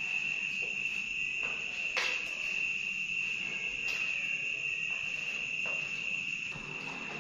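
A steady, unbroken high-pitched insect trill, cricket-like, with two light clicks about two and four seconds in.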